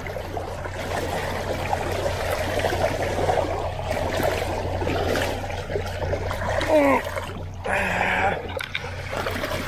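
Water rushing and splashing around a large tarpon's head as it is held alongside a slowly moving boat to revive it. The low, steady hum of the idling boat motor in forward gear runs underneath.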